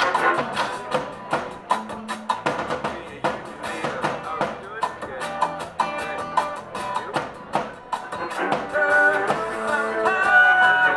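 Rock band playing live: drums keep a steady beat under guitar, and held notes swell in over the last few seconds.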